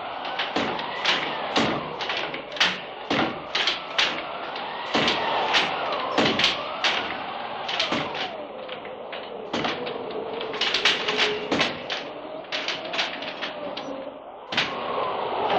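Spooky sound effect from a Halloween effects record: rapid, irregular knocking and clattering, several hits a second, over a wavering tone that glides up and down.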